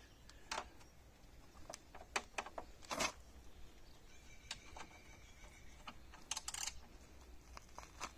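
Scattered light clicks and taps of hand tools working on the fittings of a bent aluminium motorbike carrier on the back of a camper van, irregular, the loudest about three seconds in.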